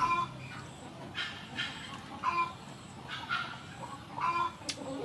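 Chickens clucking, a short call about once a second.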